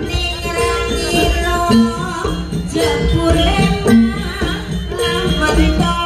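Javanese jaranan ensemble playing live: gamelan-style drums, gongs and metallophones in a repeating rhythmic pattern, with a singing voice over it.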